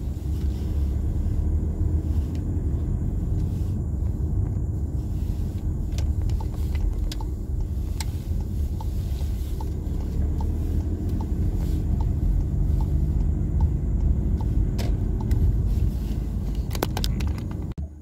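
Steady low rumble of a moving car heard from inside the cabin, engine and tyres on a wet road, with a faint regular ticking for several seconds in the middle. It cuts off just before the end.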